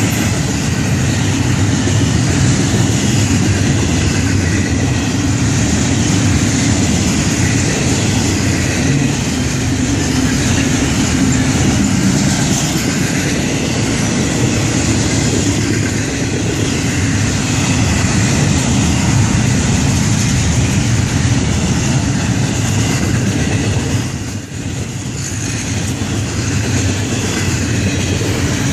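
Florida East Coast Railway freight train rolling past, its cars making a steady loud rumble of wheels on rails, with a brief dip about 24 seconds in.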